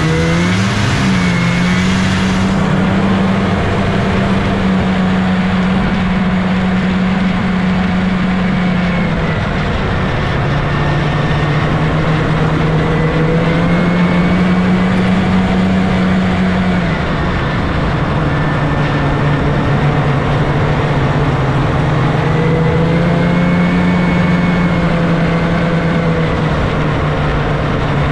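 Scorpion snowmobile's two-stroke engine running under way, heard from the rider's seat. Its note climbs at the start, holds, then eases off and picks up again a couple of times as the throttle is worked.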